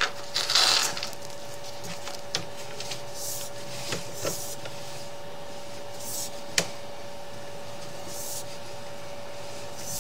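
Sewer inspection camera push cable being fed down a cast iron drain line: scattered clicks and short rustling noises over a steady hum, the loudest a rustle about half a second in and a sharp click about six and a half seconds in.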